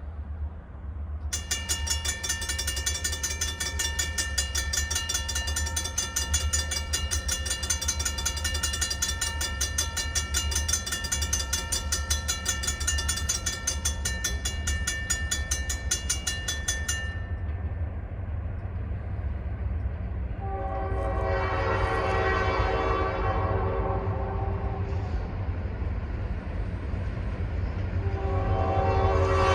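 Diesel locomotive of a New York, Susquehanna & Western freight train passing. Its bell rings rapidly from about a second in until around seventeen seconds, then the horn sounds a chord about twenty seconds in, runs for several seconds, and sounds again near the end. A low engine rumble runs underneath.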